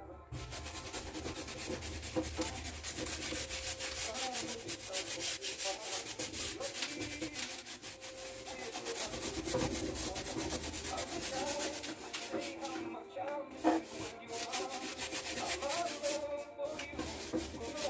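Rapid scratchy rubbing of a painting tool against stretched canvas as acrylic paint is worked in. It breaks off briefly twice in the second half.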